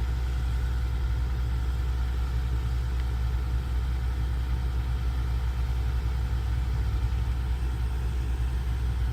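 Heavy diesel engine of earthmoving machinery running steadily at low speed, a constant deep hum without revving.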